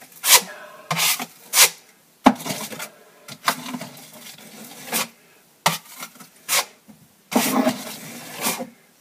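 Steel drywall taping knife scraping across the wall in repeated short strokes, spreading a first coat of joint compound over taped crack. The compound has a few dried bits in it.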